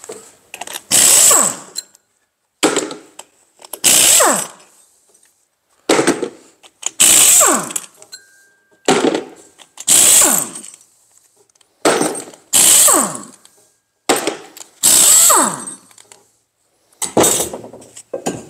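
Pneumatic impact wrench undoing the flywheel bolts on an S44 engine: a string of short hammering bursts, often two close together, each ending in a falling whine as the tool spins down, with brief pauses between.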